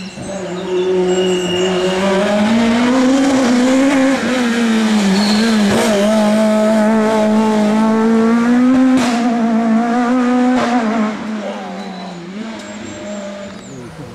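Renault Clio rally car engine at full throttle through a corner, its pitch climbing and dipping with the throttle and gear changes, with a couple of sharp cracks. It then fades away about eleven seconds in.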